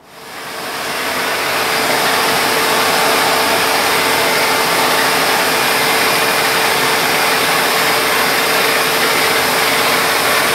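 Overhead-arm wet glass grinder starting up and grinding the flat face of a cast glass sculpture. It comes up to full level over the first two seconds, then runs steadily with a constant hum under a hissing grind.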